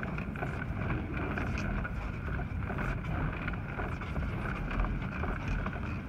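Strong gusting wind buffeting the microphone, a steady rumbling noise that swells and eases.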